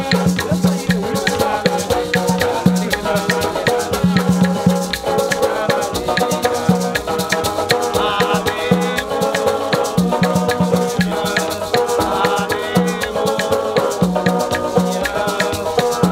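Live acoustic Haitian band music: acoustic guitar and banjo strumming over a steady shaken maraca rhythm, with a low bass note pulsing on and off and voices singing.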